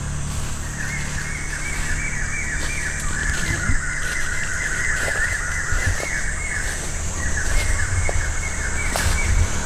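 A bird calling over and over in a rapid series of short, falling notes, over a steady low rumble.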